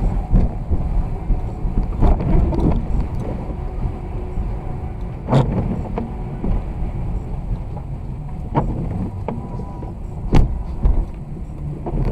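Car driving on a snowy road: a steady low rumble of engine and tyre noise, with a few sharp knocks, the loudest about five seconds and ten seconds in.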